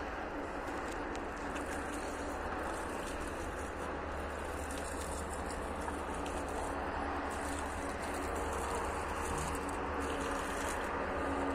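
Water poured from a clay jug, splashing and trickling steadily onto leaves and soil, over a constant low rumble.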